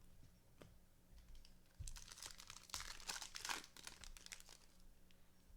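Faint crinkling and clicking of a foil trading card pack wrapper and cards being handled. It is busiest from about two to four seconds in.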